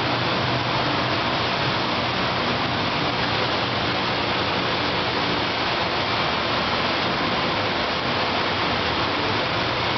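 Semi-automatic water-jug washing machine running: a steady rush of spraying water with a low machine hum underneath.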